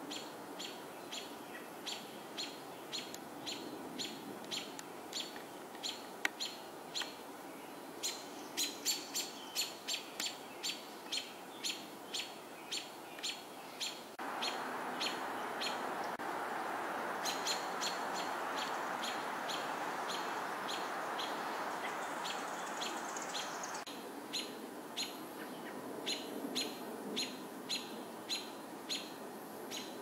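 A small songbird chirping sharply over and over, about two chirps a second. About halfway through, a louder steady rushing noise comes in for roughly ten seconds, then drops away while the chirping goes on.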